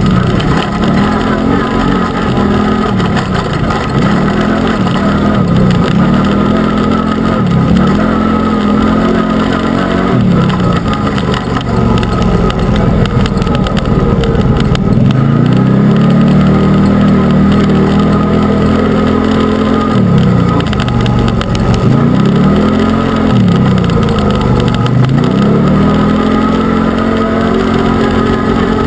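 Arctic Cat Wildcat UTV engine revving up and falling back again and again as the throttle is worked. Its pitch rises and drops every few seconds, with a longer stretch held high about halfway through.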